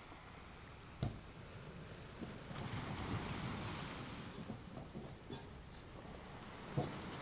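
Kitchen handling sounds: a sharp knock about a second in, a few seconds of soft rubbing and scraping, and another short knock near the end.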